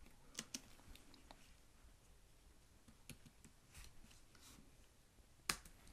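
Faint, scattered computer keyboard key clicks, a few sparse presses over several seconds, the loudest one near the end.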